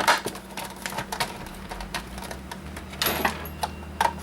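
Irregular clicks and rattles of metal and plastic parts as the hard drive caddy is worked loose from an Original Xbox console, with a few louder knocks near the end.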